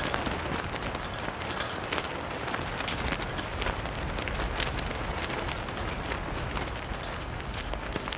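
Large cloth flag flapping and snapping in a strong wind: a steady rushing noise thick with irregular crackles.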